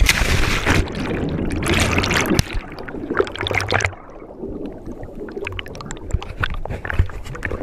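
Water and air bubbles churning around a camera plunged underwater: a loud rush for about four seconds that drops off suddenly, then quieter bubbling and gurgling with scattered small clicks, muffled through the waterproof housing.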